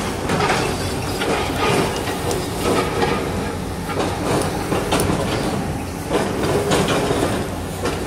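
Hydraulic excavators working demolition rubble: a steady diesel engine drone with frequent knocks and crunches of broken concrete.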